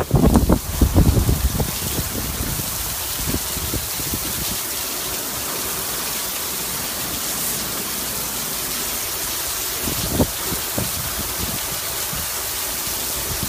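Heavy hurricane rain pouring steadily on pavement and parked cars, heard as a dense even hiss. In the first second or two, gusts buffet the microphone with low rumbling bursts.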